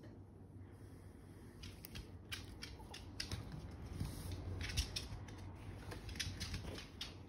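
Small dog's claws clicking and skittering on a wooden floor as it scrambles after a toy. Quick irregular ticks start a couple of seconds in and go on until near the end.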